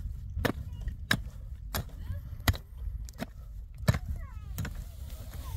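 A long-handled pick striking hard, stony soil in a steady digging rhythm, about eight blows, one every two-thirds of a second. Wind rumbles on the microphone, and small birds chirp near the end.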